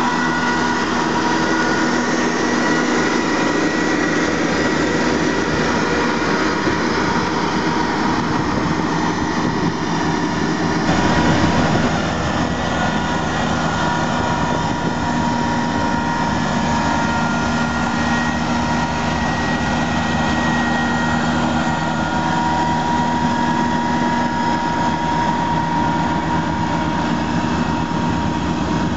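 John Deere 1600 wide area mower's 57 hp turbo diesel running steadily under load as the machine drives across grass with its three cutting decks lowered. A steady whine rides over the engine, and the sound shifts slightly about eleven seconds in.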